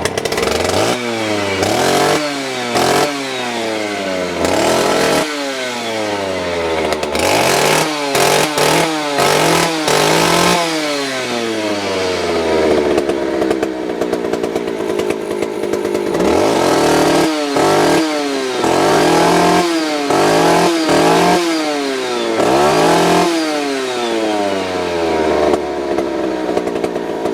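Vintage Stihl 041 AV two-stroke chainsaw engine running, blipped on the throttle over and over, each time rising sharply and falling back to idle. It idles more steadily for a few seconds in the middle and again near the end.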